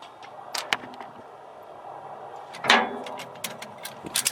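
Ratchet strap tensioner being worked to tighten the strap that holds the rake to the bucket: a few scattered clicks, a clank about two-thirds in, then quick repeated ratchet clicks toward the end.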